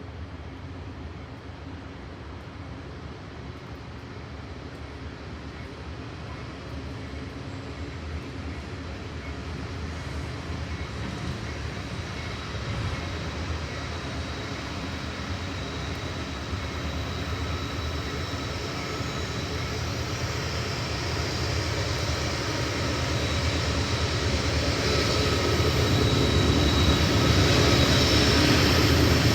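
Train approaching, its rumble growing steadily louder, with faint high-pitched tones from the wheels or rails near the end.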